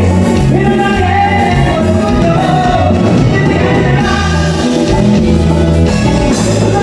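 Live band playing loud, upbeat Latin music on drum kit, electric bass and electric guitar, with a male lead singer singing through the PA.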